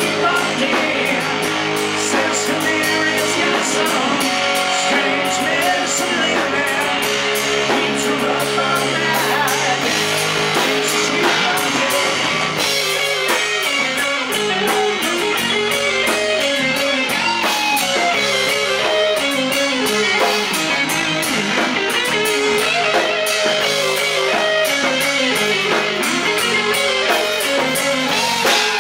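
Live rock band playing, with electric guitars and drums. It is heard from the on-stage amps and monitors rather than the house PA mix.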